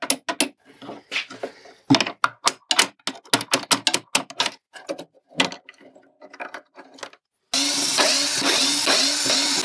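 A run of sharp knocks and clicks as a hammer taps the pulley shaft loose and the metal shaft and parts are handled, then in the last two seconds a cordless drill-driver starts and runs steadily, backing out the screws of the pulley bracket.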